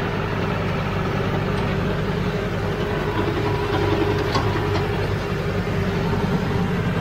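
Diesel farm tractor engine running steadily under load while it pulls a rear rotary cutter through grass and brush, with a few faint ticks in the middle.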